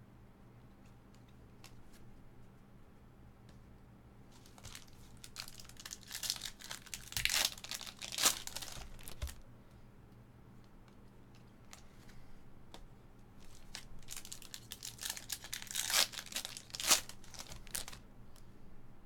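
Trading-card pack wrappers being torn open and crinkled by hand, in two bouts of crackling a few seconds long, each ending in a few sharp crackles.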